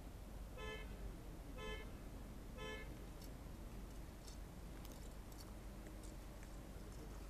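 Archery range signal horn giving three short blasts about a second apart, all at the same steady pitch. At an archery event three signals tell archers to go to the targets to score and collect arrows. Faint scattered clicks follow.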